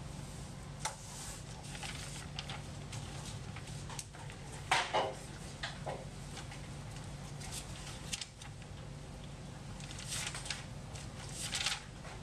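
Dry-erase marker drawing on a whiteboard: a series of short strokes, the loudest about five seconds in and a few more near the end.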